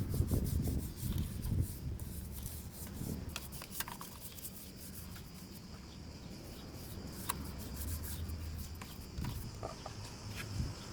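Hand rubbing and scrubbing on motorcycle exhaust parts while they are cleaned up, in uneven strokes that are strongest in the first couple of seconds and again near the end, with scattered small clicks and taps of handling.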